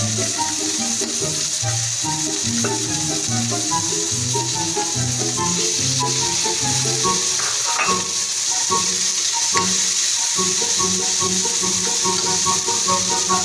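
Shallots, garlic and carrot pieces sizzling as they sauté in oil in a wok, stirred with a metal spatula, with a few sharp clicks near the middle. Background music with a plain melody plays underneath.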